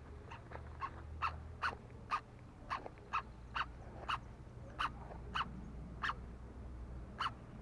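An animal calling over and over, short pitched calls coming about two a second at uneven spacing, over a low steady rumble.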